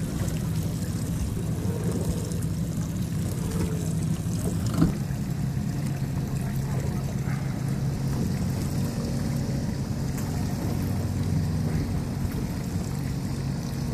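Boat engine idling steadily, with water sloshing, and a single sharp knock about five seconds in.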